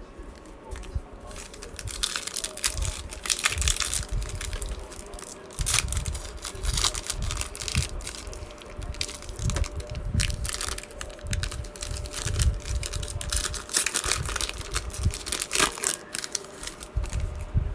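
Crinkling and tearing of a trading card pack wrapper, in irregular bursts as the pack is handled and opened.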